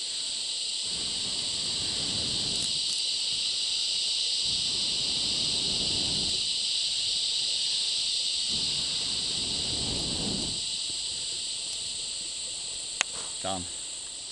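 A person blowing long breaths into a small smouldering campfire to get it going, three blows of about two seconds each, over a steady high chorus of insects. A single sharp click comes near the end.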